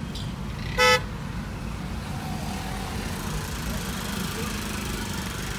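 A vehicle horn gives one short toot just under a second in, the loudest sound, over the steady low rumble of traffic heard from inside a car cabin.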